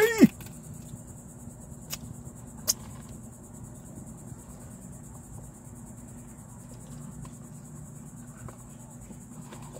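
Quiet car-cabin background: a steady low hum under a constant high hiss, with two short clicks about two and three seconds in.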